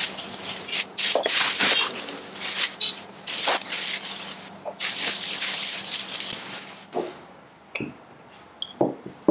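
Bubble wrap and plastic packing crinkling and rustling as items are pulled out of a cardboard box and unwrapped. Near the end it goes quieter, with a few light clinks of stoneware cups being set down.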